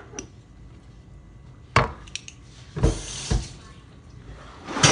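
Kitchen clatter: a few sharp knocks of items being set down on a counter, with a short rush of running water about three seconds in.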